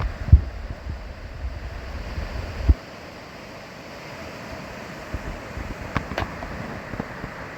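Wind buffeting the microphone over the steady rush of a trout river's flowing water. The buffeting and a couple of thumps stop about three seconds in, leaving the even hiss of the water with a few faint clicks.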